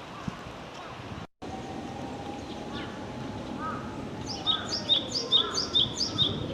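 A small wild songbird calling over steady outdoor background noise: about five quick repeated high two-part notes in the second half, with lower chirps alongside. A low hum sinks and then rises in pitch underneath, and the sound cuts out briefly about a second in.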